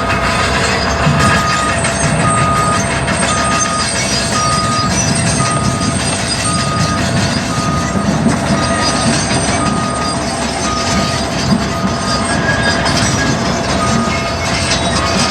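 Backup alarm on a construction machine beeping about once a second while the machine reverses, over the steady noise of its running engine.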